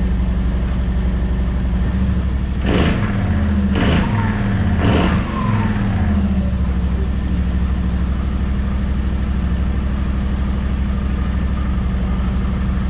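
Yamaha Wolverine X4 engine, freshly rebuilt top end, running steadily with the intake off and the throttle bodies open, given three quick throttle blips about a second apart in the first half.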